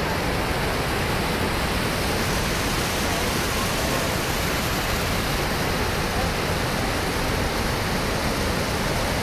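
Massive floodwater pouring over a large concrete dam's overflowing spillway: a loud, steady rush of falling water that does not let up.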